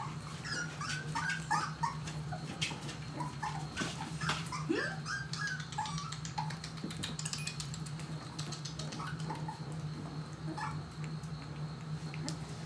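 Corgi puppies whining and yipping in short, high-pitched calls scattered throughout, one of them a rising squeal a little before the middle, with many small clicks among them.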